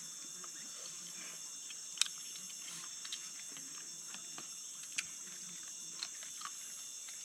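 Faint, steady high-pitched drone of a jungle insect chorus, with a few sharp clicks about two, five and six seconds in.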